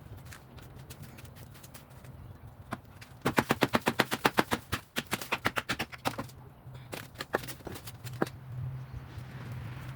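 Rapid sharp knocks, about six a second for roughly three seconds from a third of the way in, with a few single knocks around them, as rotting wood is knocked and pulled loose in demolition.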